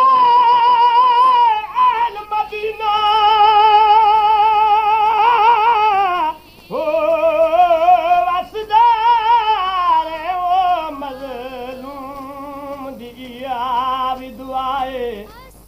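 A solo voice singing a Saraiki dohra, holding long drawn-out notes with a wide wavering vibrato and sliding between pitches, with no clear words. The voice breaks off briefly about six seconds in, then comes back and settles onto lower, quieter notes.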